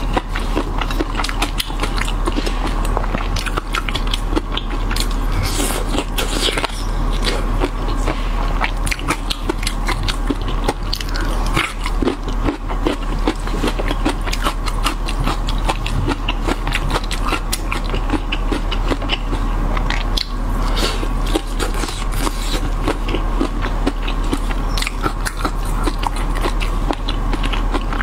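Close-miked eating sounds: chewing and crunching of chili-oil-coated shrimp with fried peanuts, a dense run of crackly clicks, with food squished and scraped on the plate by a gloved hand.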